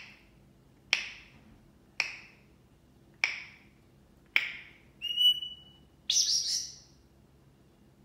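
African grey parrot vocalizing: five sharp clicks, each with a short ringing tail, at about one a second, then a short steady high whistle and a harsh squawk.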